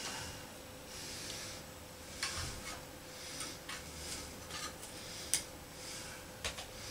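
Scissors cutting through the plush fur fabric of a large stuffed toy: irregular clicks of the blades closing with rustling of fabric and fiberfill stuffing, the sharpest click about five seconds in.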